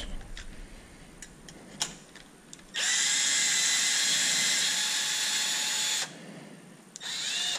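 Cordless drill-driver spinning a nut off a threaded battery hold-down rod through a long socket extension. It gives one steady whine of about three seconds, rising in pitch as the motor spins up, then a short second run near the end. A few faint tool clicks come before it.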